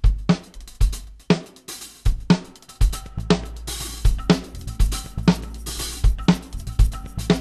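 Music led by a drum kit: a steady kick-and-snare beat at about two beats a second with hi-hat and cymbals. A low bass comes in under it about three seconds in.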